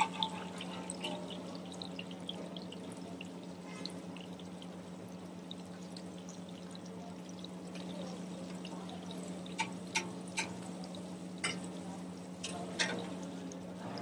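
Maggi-noodle-coated vadas deep-frying in a large kadai of hot oil: a steady sizzle and bubbling, with a steady low hum underneath. A few sharp clinks of the perforated steel ladle against the pan come in the second half.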